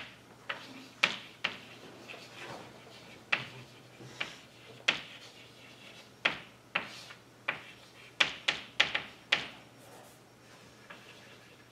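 Chalk writing on a blackboard: about fifteen sharp taps and clicks of the chalk striking the board at irregular intervals, bunched closest together around eight to nine seconds in.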